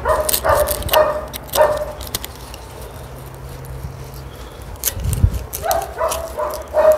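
A dog barking in short runs: about four barks in the first two seconds, then another quick run of barks near the end. Light clicks and a dull thump about five seconds in come between them.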